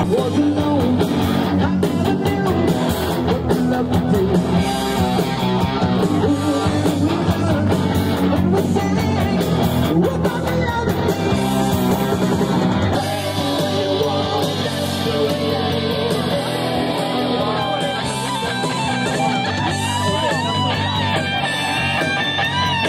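Rock band playing: guitar, drums and a singing voice. The drums thin out and it gets a little quieter about halfway through, with bending guitar notes near the end.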